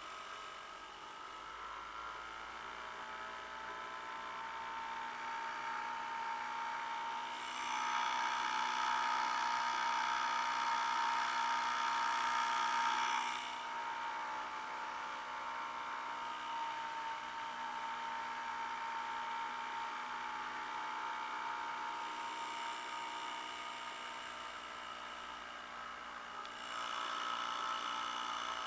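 Johnson 2 hp Seahorse two-stroke outboard motor running steadily under way with a high, buzzing whine. Its pitch rises slightly over the first couple of seconds. It grows louder from about eight to thirteen seconds in, and again near the end.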